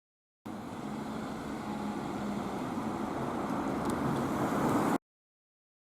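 Steady vehicle noise, a low hum over a rushing haze, growing slightly louder; it starts and cuts off abruptly.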